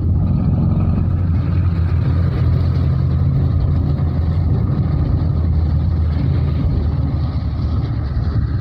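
Engine of a small open-sided passenger vehicle running steadily with a low hum, heard from inside as it drives, with a hiss of tyres on the wet road.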